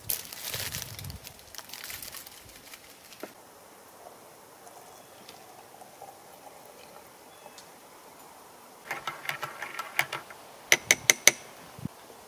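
A metal spoon clinking and scraping against dishes while stirring: a quick rattle of clinks about nine seconds in, then a few sharp ringing taps near the end, after a stretch of faint handling sounds.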